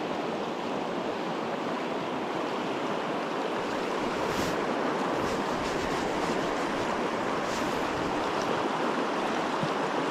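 Fast, shallow river water rushing over rocks and riffles: a steady, even rush.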